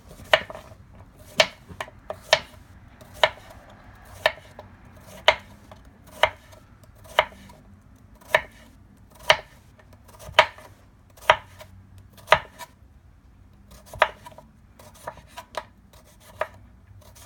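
Knife slicing a cucumber into rounds on a cutting board: sharp chopping knocks, about one a second, some in quick pairs.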